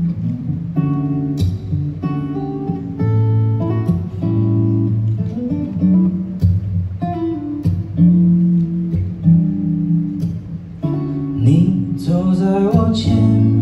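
Acoustic guitar played solo, strummed chords changing about every second in a slow song intro. Near the end a man's voice slides in over the guitar.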